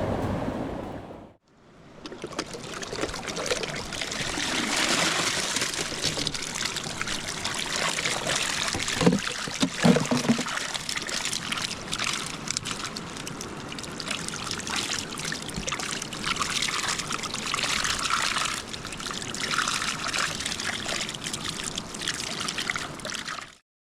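Mountain stream water running steadily, starting about a second and a half in and cutting off abruptly near the end. A brief low sound comes about nine to ten seconds in.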